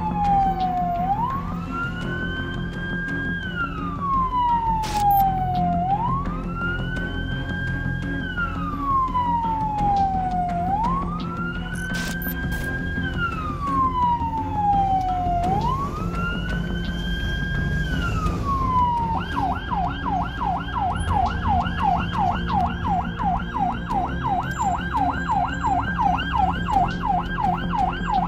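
Ambulance siren wailing in slow sweeps, a quick rise then a long fall about every five seconds, switching about two-thirds of the way through to a fast yelp of about three sweeps a second. It is heard from inside the ambulance's cab, over a steady rumble of engine and traffic.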